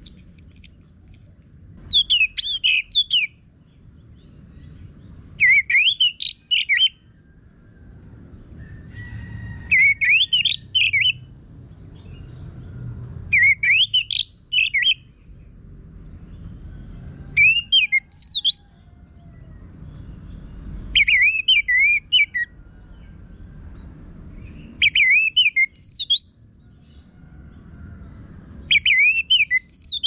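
Orange-headed thrush (anis merah) singing loud, rough-voiced song phrases: about eight short bursts of quick up-and-down notes, each about a second and a half long, repeated every four seconds or so.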